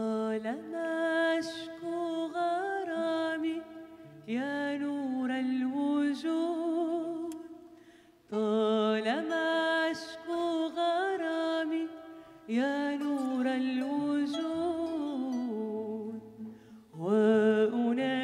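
Sufi madih chant sung in Arabic: long, ornamented melodic phrases of about four seconds each, with short breaths between them.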